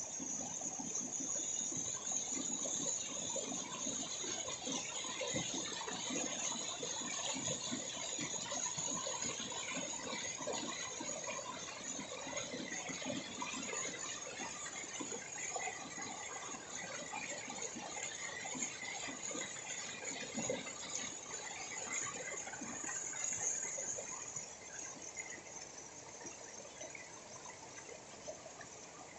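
Water cascading down over rocks in a small waterfall, a steady rushing and splashing that gets somewhat quieter near the end.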